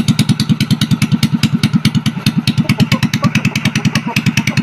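Single-cylinder motorcycle engine idling with its muffler removed, the exhaust beating loud and even from the bare header pipe at about ten pulses a second. The muffler is off to check whether the smoke comes from oil pooled inside it rather than from the engine.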